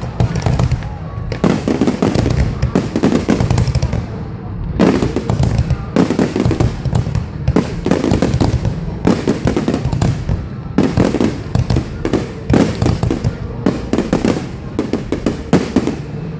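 Fireworks going off in a rapid, dense series of bangs and crackles, with a couple of brief lulls in the first four seconds.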